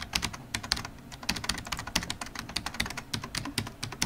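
Rapid, continuous computer-keyboard typing: many fast, irregular key clicks that start abruptly.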